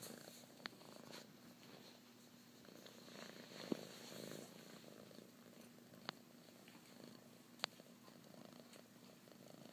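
Domestic kitten purring steadily and faintly in even pulses while being stroked. Four short sharp clicks break through it.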